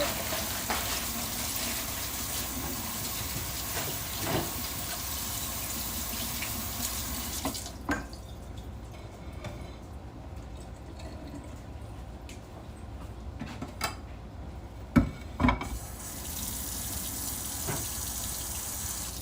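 Kitchen tap running into a sink, shut off suddenly about eight seconds in. A few sharp knocks follow, then the water runs again near the end.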